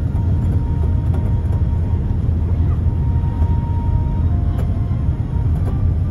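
Steady low rumble of engine and airflow noise inside the passenger cabin of a Boeing 787-9 descending on approach to land.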